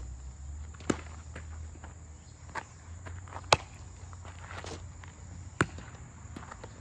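Sharp pops of a baseball smacking into a leather youth infield glove (Bradley Next Play 11.5") during a game of catch: three loud pops, about a second in, midway, and near the end, with a softer knock between the first two. Fainter scuffs of steps on infield dirt come in between.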